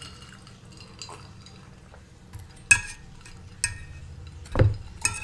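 Quiet eating sounds close to a microphone: two sharp clicks of a metal fork against the ceramic serving dish, about a second apart, past the middle, then a short low thump near the end.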